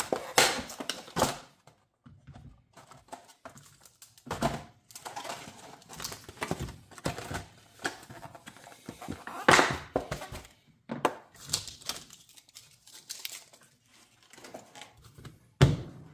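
Packaging being opened and handled: irregular rustling and crinkling with scattered knocks and clicks, the loudest bursts about four, nine and a half and fifteen and a half seconds in.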